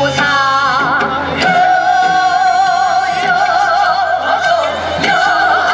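Korean traditional gugak music: a held, wavering melody line with wide vibrato, with a few sharp drum strokes, one about a second and a half in and another near the end.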